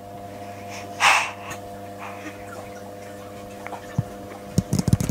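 An excited baby lets out one short, breathy squeal about a second in, over a steady low hum. Near the end come a run of soft knocks and rustles.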